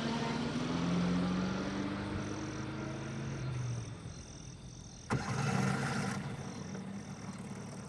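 Motor vehicle engine running, with a rhythmic high chirping about three times a second behind it. The sound changes abruptly about five seconds in.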